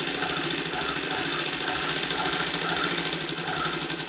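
Picot-edging sewing machine stitching a silk-thread edge on cloth, running steadily with a fast, even needle rhythm. The stitch is set very fine, between 0 and 1, so the work feeds slowly.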